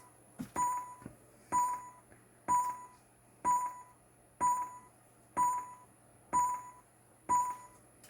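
A short beep with a click at its onset, repeating evenly about once a second, played through the audio of a computer demo running on the Amiga.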